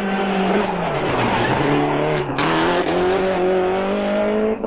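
Toyota Celica GT-Four ST185 Group A rally car's turbocharged four-cylinder engine at full stage pace. The revs dip and recover about a second in, a gear change follows a little after two seconds, and then the engine climbs steadily in revs until another shift right at the end.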